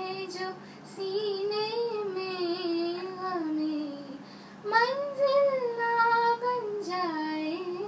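A young woman singing Urdu verse into a microphone as a slow melodic recitation, holding long notes that bend up and down. There is a short break about four seconds in, and she comes back in louder.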